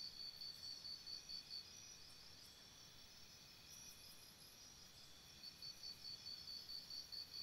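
Faint, high-pitched insect chirping at about five chirps a second. It stops about a second and a half in and starts again near the end, with only faint outdoor background between.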